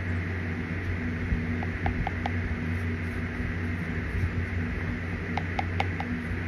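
Steady low hum and hiss, with two short runs of faint clicks, about two seconds in and again near the end, as a plastic spoon scrapes a can and food is chewed.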